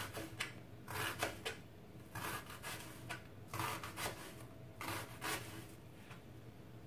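Kitchen knife slicing through a red onion onto a plastic cutting board: irregular crisp cuts in small clusters, stopping about six seconds in.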